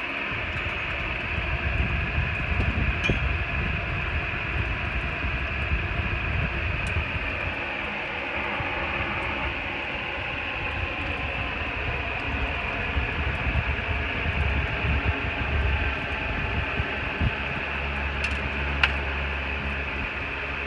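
Steady whir of an electric blower blowing air into a frosted freezer to melt the ice, with uneven gusts buffeting the microphone and a few faint clicks.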